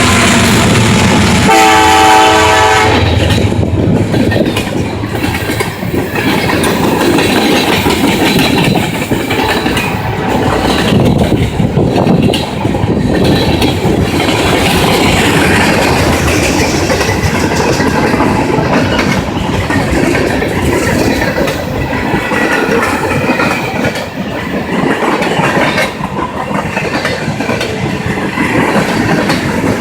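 Norfolk Southern freight train: the diesel locomotive's engine runs, its horn sounds one short blast about two seconds in, then the freight cars roll past with wheels clattering over the rail joints.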